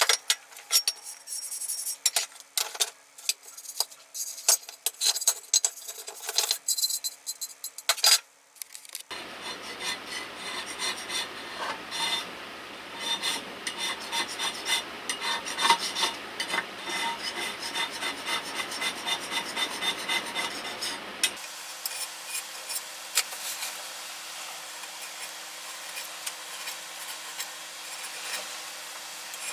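Hand scraping and rubbing on the metal parts of an old Makita 1800 electric planer being cleaned of rust and hardened wood dust. It opens with a run of sharp clicks and taps, turns to steady scraping about nine seconds in, and changes abruptly to lighter rubbing with small ticks about twenty-one seconds in.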